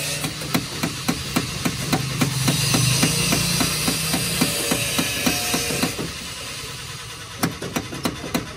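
Maruti Gypsy's engine cranking on the starter, a steady run of rhythmic chugs for about six seconds, and it does not catch. The engine is slow to fire because the vehicle has stood unused for many days.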